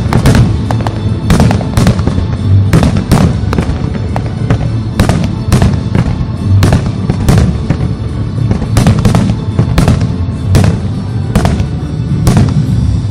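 Aerial firework shells bursting in a rapid, irregular run of sharp bangs, many per second at times, over loud music.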